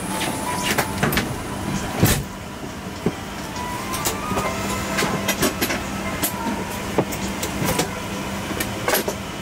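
Airliner cabin ambience: a steady hum of the cabin air systems, with scattered clicks and knocks and one loud thump about two seconds in.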